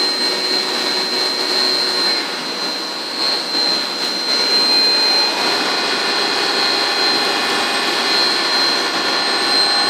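Biglia B470 YMS Quattro CNC lathe running, a steady whirring machine noise with a high whine; about five seconds in a second set of humming tones joins, as a spindle or drive changes speed.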